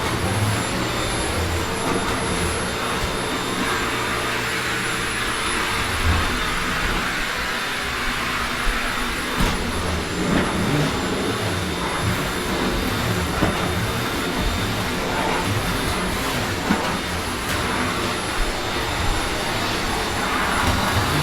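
Vacuum cleaner running steadily: a continuous rushing noise with a thin high whine, and occasional low bumps.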